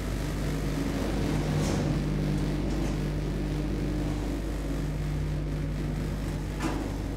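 Schindler hydraulic elevator travelling, heard from inside the glass cab: a steady low hum and drone, with a single short knock near the end.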